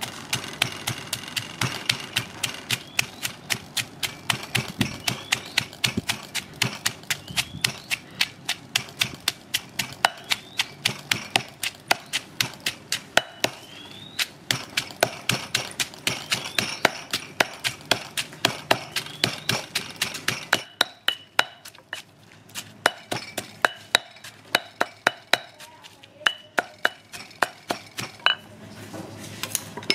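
Granite pestle pounding shallots, garlic and spices in a granite mortar: a steady run of dull knocks, about three to four a second, as the ingredients are crushed into a spice paste.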